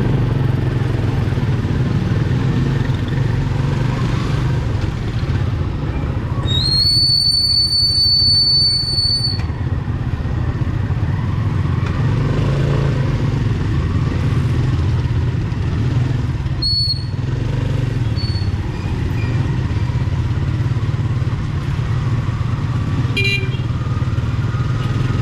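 Motorcycle engine of a sidecar tricycle running steadily, heard from the sidecar. A high whistling tone sounds for about three seconds around a quarter of the way in, and two brief ones come later.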